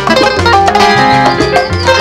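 Cuban punto guajiro band music, led by a Cuban laúd playing quick picked melody notes over a guitar and bass accompaniment with a steady bass pulse.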